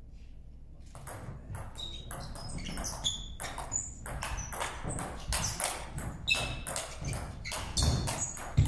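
Table tennis rally: the ball clicking sharply off the paddles and the table in quick succession, starting about a second in, with a few short high squeaks between the hits.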